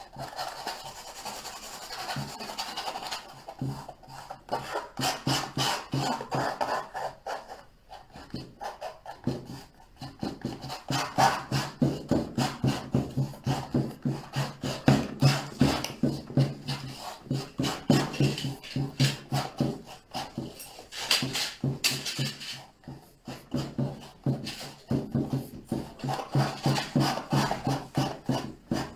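Palette knife scraping and dabbing thick oil paint onto a canvas in quick, repeated strokes.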